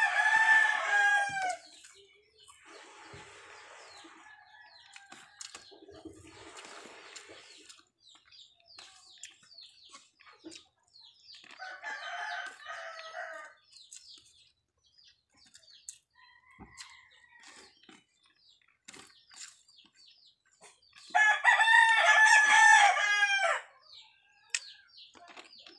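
A rooster crowing three times, each a long pitched call of about two seconds, roughly ten seconds apart. Faint chirps and small clicks come between the crows.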